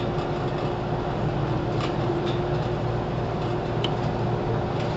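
Interior sound of a JR 413 series electric train in motor car KuMoHa 413-4: a steady low rumble of the train running, with a constant hum and a few faint clicks.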